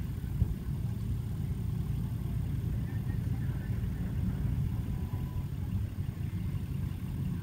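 Engine running with a low, steady rumble.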